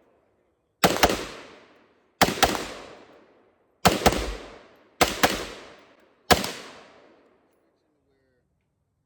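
Gunshots on a firing range: nine shots, mostly in quick pairs about a quarter second apart, each ringing out with a long echo that fades over about a second. The last shot comes alone, about six seconds in.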